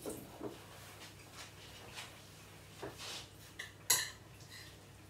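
Metal spoon clinking and scraping against a white ceramic dish while risotto is stirred, with a few short clinks and one sharper, ringing clink about four seconds in.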